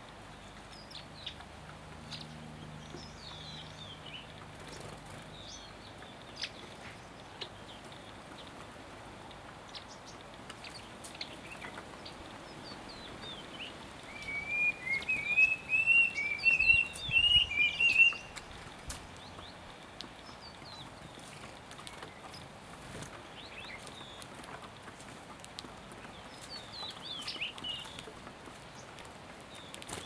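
Small songbirds chirping now and then, with a loud run of quick, repeated chirps for about four seconds near the middle.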